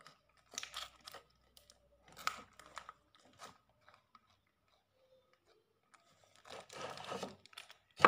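Thin plastic packet crinkling and rustling as it is pulled and squeezed in the hands, in short bursts with the longest near the end, then a sharp click.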